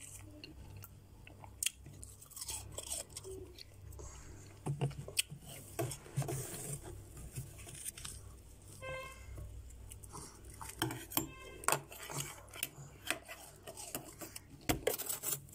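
Built-up freezer frost being scraped and scooped with a metal spoon: irregular crunching and scraping of the packed ice crystals, with a steady low hum underneath.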